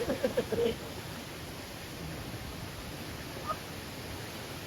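Steady, even rush of water from the waterfall, with a voice briefly at the start.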